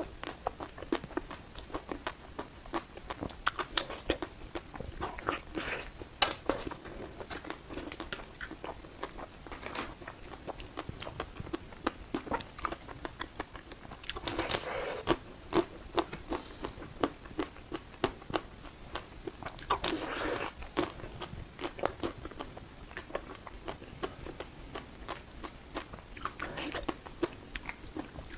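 Close-miked biting and chewing of crispy ice cream: a dense run of small crackling crunches, with two longer, louder bites about halfway through and again about two-thirds of the way in.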